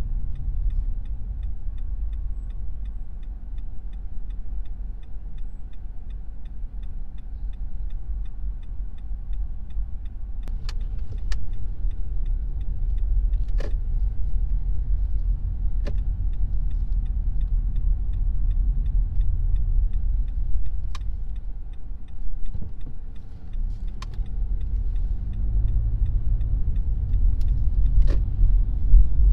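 Car driving: a steady low rumble of engine and road noise, with a few sharp clicks scattered through it.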